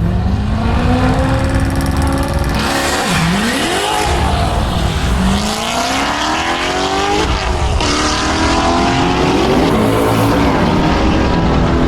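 Cars accelerating hard down a drag strip, engine pitch climbing and dropping back repeatedly as they shift through the gears.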